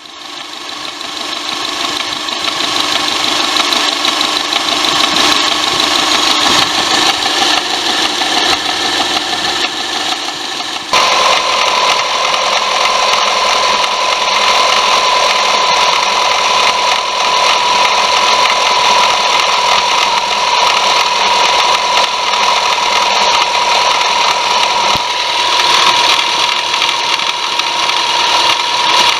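Subaru Legacy BP5's 2.0-litre flat-four engine running with the abnormal noise that appeared after its timing belt was replaced: a steady high whine over the engine sound, which turns suddenly louder and clearer about eleven seconds in and then holds.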